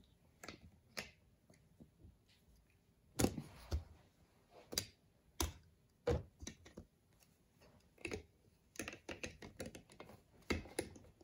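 Snap Circuits plastic parts being handled and snapped onto the base grid: a scattered, irregular series of sharp clicks and clacks, busier near the end.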